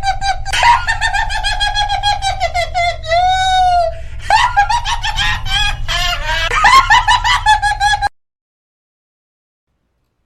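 High-pitched, cackling clown laugh: rapid "ha-ha" pulses broken by long, drawn-out shrieking notes, over a low hum. It cuts off suddenly about eight seconds in.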